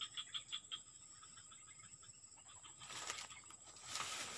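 Grass and brush rustling twice, about three and four seconds in, as a person crouches on a weedy bank. Faint rapid chirping and a steady high-pitched whine sound throughout.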